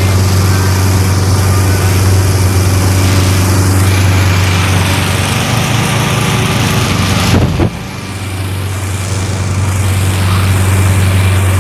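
Gas-engine inflator fans running steadily, blowing cold air into hot air balloon envelopes for inflation. About two-thirds of the way through there is a short falling sweep and a brief drop in level that builds back up.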